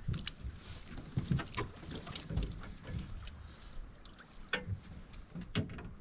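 Small waves lapping against the hull of a flat-bottomed jon boat, with a low wind rumble and scattered light knocks and clicks.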